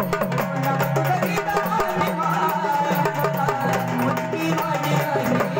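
Marathi gondhal folk music: fast, steady drumming under a held melody line, with no words sung in this stretch.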